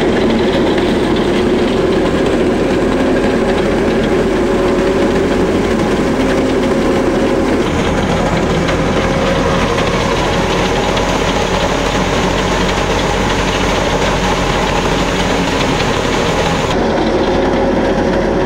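Grain threshing machine running steadily at working speed, together with the engine that drives it: a loud, unbroken machine noise with a steady hum.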